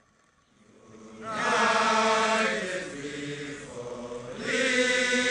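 A company of Ugandan soldiers singing together as a group, a chant-like song in long held phrases. The singing swells in about a second in and rises again to a second strong phrase near the end.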